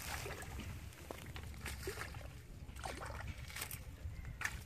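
Irregular small water splashes and sloshing as the tip of a bamboo fishing pole is worked about in a shallow pond, over a low steady rumble.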